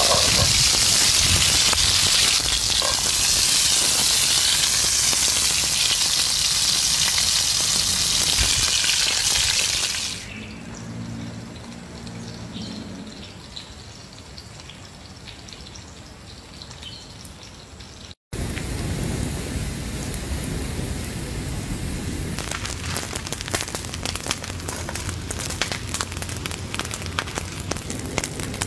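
Pork belly sizzling loudly in a hot pan, cut off after about ten seconds by a much quieter stretch. After an abrupt cut, a steady crackling and popping with a hiss under it, from a cast-iron skillet of salt heating.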